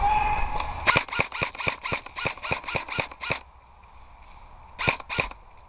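Airsoft gun firing a rapid string of about ten sharp semi-automatic shots, roughly four a second, then two more shots near the end.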